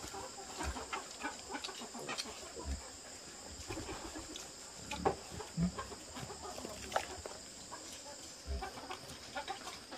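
Chickens clucking: many short, scattered calls with the odd sharper cluck.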